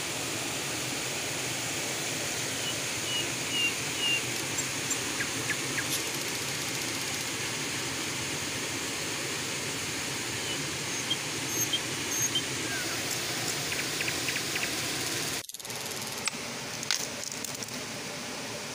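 Steady rush of a small river's flowing water, with a few short high chirps and light taps over it; the sound cuts briefly and comes back a little quieter about fifteen seconds in.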